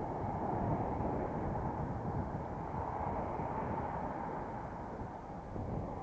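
Steady low rumble of wind buffeting the microphone of a bike-mounted camera while cycling, mixed with road traffic noise.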